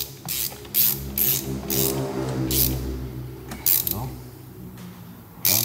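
Ratchet wrench worked in short strokes, giving a string of sharp ratcheting clicks at uneven intervals, as a bolt is tightened during injector reinstallation.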